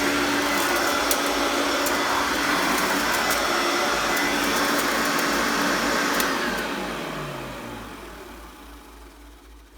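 1984 Hoover Sovereign upright vacuum cleaner (model U2314, 4-amp motor) running steadily. About six seconds in it is switched off, and its hum falls in pitch and fades as the motor winds down.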